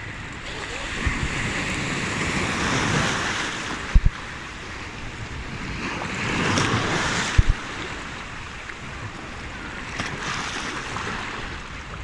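Small sea waves washing in among shoreline rocks and breaking against them in white spray, the rush of water swelling twice. Two short low thumps, about four and seven and a half seconds in.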